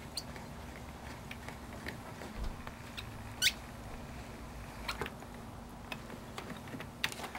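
Hand-cranked Cricut Texture Boutique embossing machine being turned, feeding an embossing folder between its plates through the rollers. It gives scattered faint clicks and small squeaks, the clearest squeak about three and a half seconds in.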